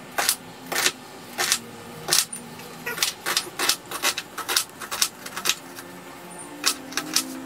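Kitchen knife dicing a red onion on a cutting board: irregular sharp knocks of the blade striking the board, coming faster midway and pausing briefly near the end.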